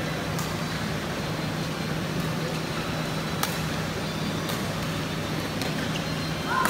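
Badminton rally: a few sharp racket strikes on the shuttlecock, unevenly spaced, over a steady hall hum and hiss, with a short squeak just before the end.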